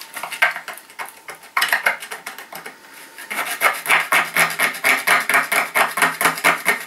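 Screwdriver scraping paint off a painted metal light fitting to bare the metal for an earth connection. A few separate scrapes at first, then quick, steady back-and-forth strokes from about halfway in.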